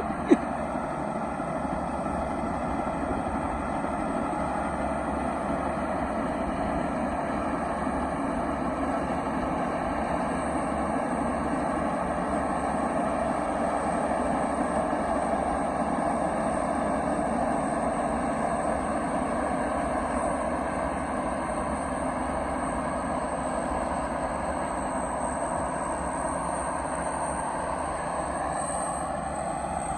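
Farm truck engine running steadily for the whole stretch, a little louder in the middle, with one sharp click just after the start.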